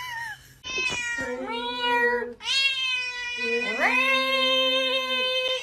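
A cat yowling in long, drawn-out meows, two of them, the second swooping up in pitch partway through and still going at the end.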